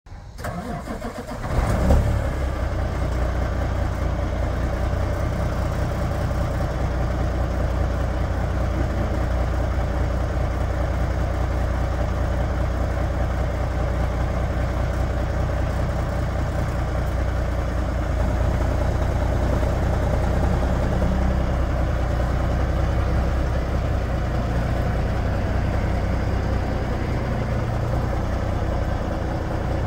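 Diesel engine of a 2016 Kenworth W900 tractor truck starting about two seconds in, then idling steadily.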